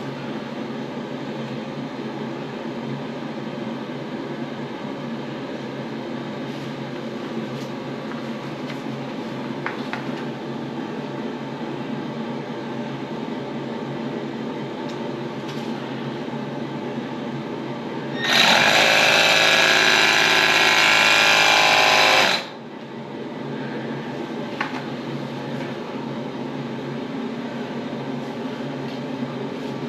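Milwaukee M12 AirSnake's built-in air pump running steadily for about four seconds, two-thirds of the way in, charging the tool with compressed air. A steady low hum lies under it throughout.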